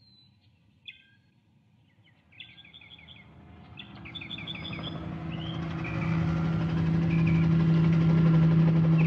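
Birds chirping in short repeated trills against near quiet. Then a helicopter approaches, its engine and rotor growing steadily louder through the second half until they cover the birds.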